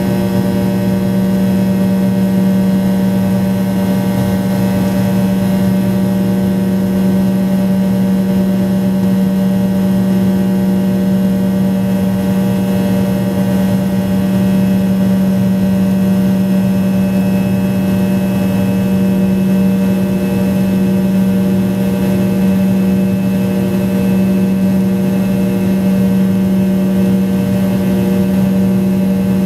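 Rolls-Royce Tay turbofan of a Fokker 70, heard in the cabin right beside its rear-mounted nacelle while climbing after takeoff: a loud steady drone with a strong low hum and several fainter higher tones over a rushing noise.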